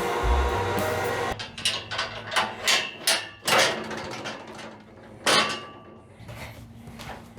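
A brief stretch of music, then a run of irregular knocks and clunks, the loudest about three and a half and five seconds in.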